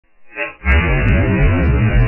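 Background music with a heavy bass, starting about half a second in.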